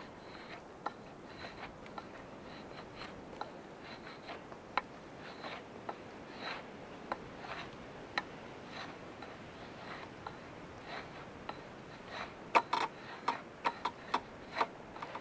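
Large bushcraft knife shaving thin curls off a dry wooden stick to make fire-starting shavings: a string of short, crisp scrapes and clicks, louder and more closely spaced near the end.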